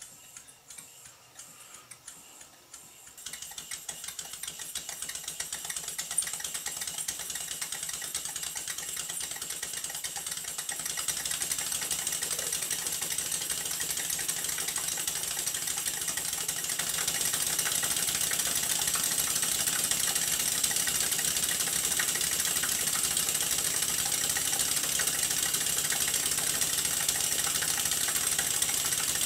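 Two Stuart S50 single-cylinder horizontal model steam engines running on compressed air: a fast even beat of exhaust puffs under a strong hiss of escaping air. It jumps louder about three seconds in, builds further until about halfway, then runs steadily.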